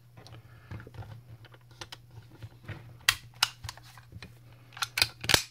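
Walther P99 blank-firing pistol being handled during reassembly: light clicks and rattles of the slide and frame, with sharper clicks about three seconds in and a cluster of loud clacks near the end.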